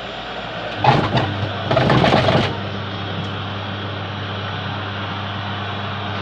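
Twin-tub washing machine's wash motor humming steadily, starting about a second in, with two loud bursts of clattering noise over the next two seconds.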